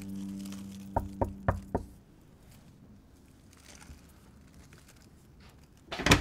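Knocking on a front door: four quick, evenly spaced raps about a second in, then a louder clunk near the end. A held low drone from the film score fades out under the first knocks.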